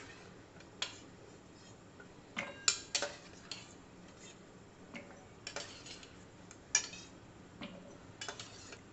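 A steel spoon clinking against a steel bowl and a steel mixer-grinder jar as soaked almonds are scooped out of water and dropped into the jar: scattered, irregular clinks and taps, a few of them ringing briefly.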